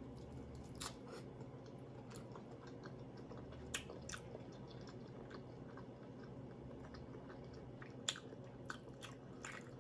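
Faint chewing and mouth sounds of someone eating, with a few soft clicks scattered through, over a low steady room hum.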